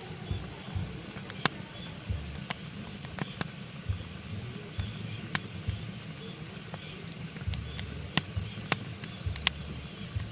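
Pine logs burning in a fireplace, crackling with irregular sharp pops, about two a second, over a low steady rumble and a faint hiss.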